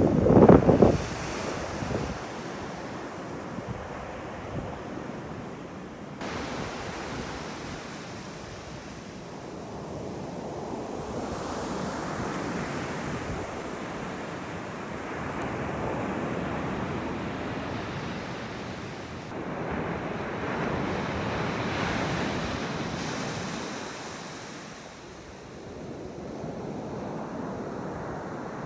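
Ocean surf washing up a sandy beach, swelling and ebbing every few seconds, with wind buffeting the microphone; a hard wind gust in the first second is the loudest moment.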